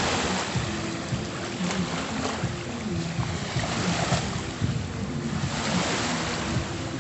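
Small sea waves breaking and washing up on a pebbly shore, surging every few seconds.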